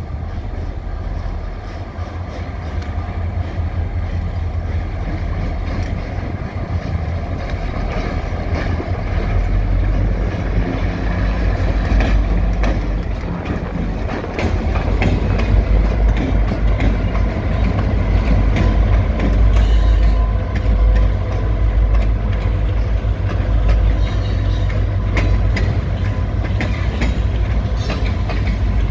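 Two EMD GP38-2 diesel locomotives come closer and pass, their two-stroke 16-cylinder engines making a heavy low rumble that grows louder as they go by. Freight cars follow, with their wheels clicking over the rail joints.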